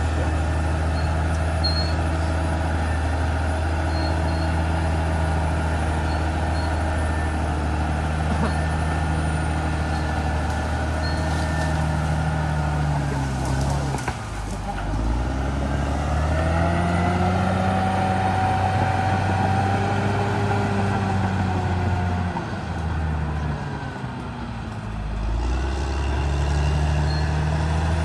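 Caterpillar D6R XL bulldozer's diesel engine running steadily at high revs, its pitch sagging and recovering twice: about halfway through and again a few seconds before the end.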